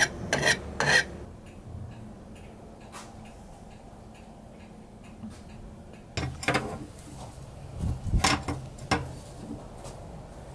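The billhook's steel blade is stroked across a round sharpener, giving rasping strokes about two a second that stop about a second in. After that there is a low steady background with faint ticks, then a few sharp knocks and clicks, the loudest about six and eight seconds in.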